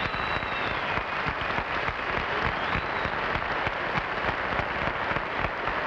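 Studio audience applauding steadily, a dense, even clapping that holds at the same level throughout.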